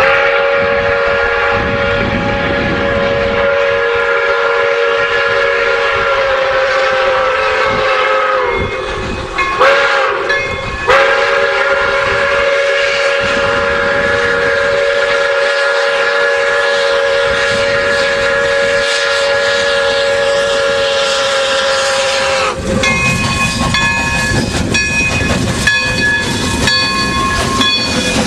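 Pere Marquette 1225, a 2-8-4 steam locomotive, blowing its steam whistle for a road crossing: a long blast of several notes sounding together that sags in pitch, two short toots, then another long blast that stops suddenly about three quarters of the way through. The locomotive then passes close by with clanking rods and hissing steam.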